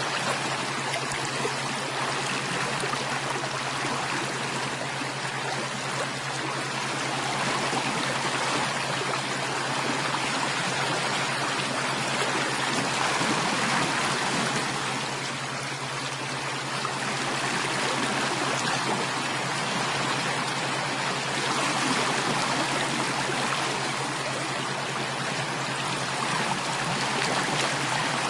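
A stream of running water, a steady babbling rush that swells and eases slowly.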